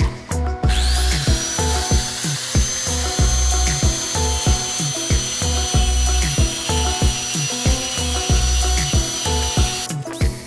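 Background music with a steady beat, over which a power tool starts about half a second in: a high whine that rises quickly as the tool spins up, then holds steady until it stops near the end.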